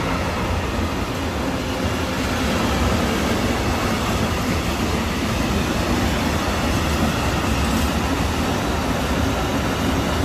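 Freight train of China clay bogie tank wagons rolling past at speed: a steady, loud rumble of steel wheels on the rails.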